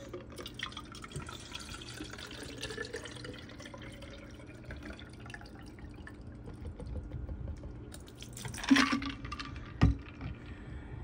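Ice water pouring from a plastic bottle into a clear acrylic milk-carton water bottle, an uneven splashing trickle with fine ticks. It ends in a louder splash near the end, then a single thump.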